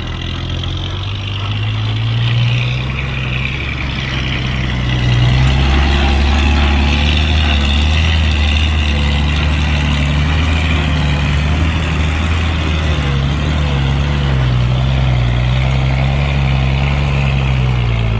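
Heavy diesel engine of a dump truck or bulldozer running, its note rising and falling with load, getting louder about five seconds in.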